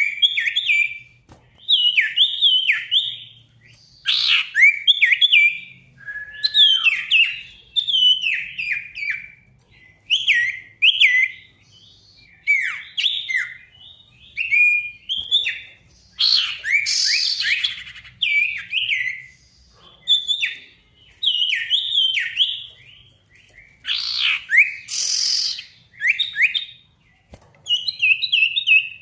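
A sirtu songbird singing vigorously: quick runs of sweeping whistled notes in short phrases, one after another about every second or two, with two harsher, rasping bursts in the middle. It is a challenging song meant to provoke a rival male into answering.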